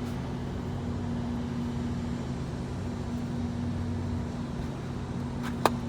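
A steady low mechanical hum with a constant pitched tone, like a running motor, and a single sharp click near the end.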